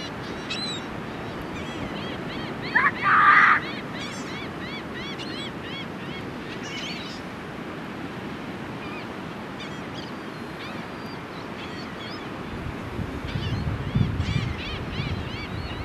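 Surf washing on a beach under a steady wash of noise, with birds calling in short, repeated high chirps and one louder squawk about three seconds in. Wind buffets the microphone in low rumbles near the end.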